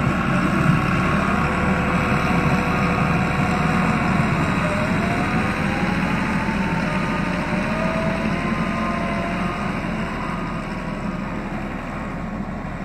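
Diesel engine of a Doosan D140W wheeled excavator running steadily, with a faint whine that rises in pitch about five seconds in. The sound eases slightly toward the end.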